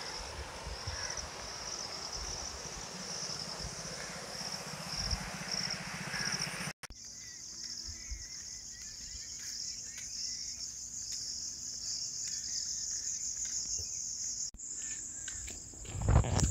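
Insects chirring outdoors, a steady high buzz that pulses in the first several seconds over a rushing noise and then runs on continuously after a cut. A loud low thump comes near the end.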